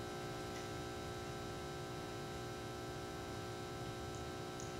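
Steady electrical mains hum with a light hiss from the microphone and sound system: a stack of even, unchanging tones.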